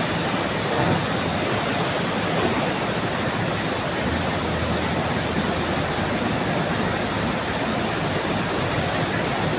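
Steady rushing roar of fast-flowing water, unbroken and even, with a faint low diesel engine hum from the earth-moving machines under it.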